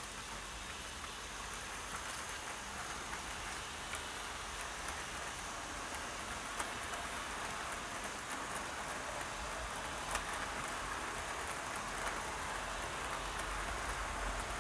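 00 gauge model A3 Pacific hauling a rake of eight teak coaches along the track: a steady hiss of wheels rolling on rail, broken by a few faint clicks, growing slightly louder as the coaches pass.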